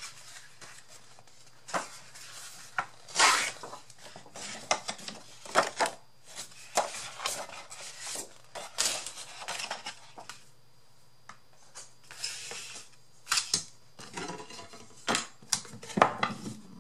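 Sheets of scrapbook paper rustling and flapping as they are leafed through and pulled from a paper pad. Scattered sharp taps and knocks come from the wooden box and other things being handled on the desk.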